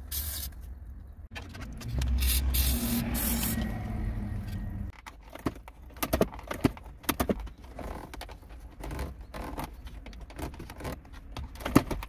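Aerosol lanolin spray hissing in a few short bursts onto the plastic heater-control dial and lever mechanism, then a run of sharp plastic clicks and scrapes through the rest.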